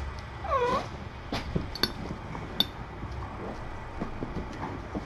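A cat gives one short meow about half a second in, dipping then rising in pitch. A few sharp clicks or taps follow.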